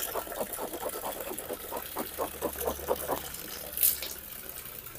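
Filtered water running out of the homemade PVC filter's outlet pipe and splashing, with a quick run of gurgles that stops about three seconds in. A short hiss follows near the end.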